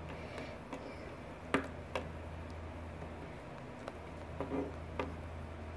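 A plastic toy figure handled on a tabletop while a small towel is rubbed through spilled liquid: soft rubbing and a few light taps, the clearest about one and a half and two seconds in, over a steady low hum.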